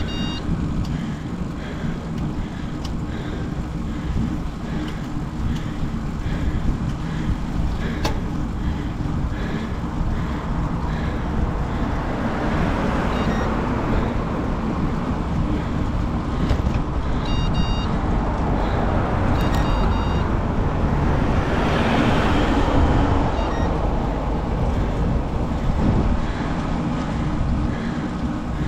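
Wind buffeting the microphone as a steady low rumble, with a broader rush that builds through the middle and fades toward the end.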